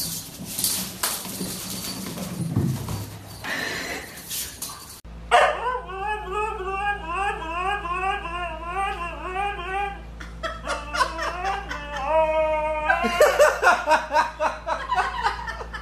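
Husky vocalising in a long run of wavering calls whose pitch rises and falls about twice a second, then a few steadier held notes and shorter yelps near the end. This starts about five seconds in; the first seconds hold an unclear mix of sounds.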